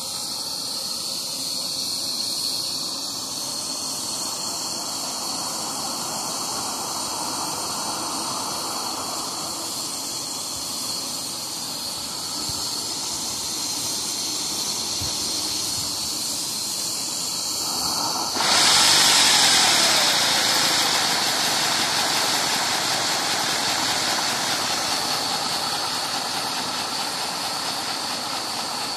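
Gauge 3 live steam model of a Stanier 8F locomotive raising steam: a steady hiss, then about 18 seconds in a much louder hiss starts abruptly and slowly eases.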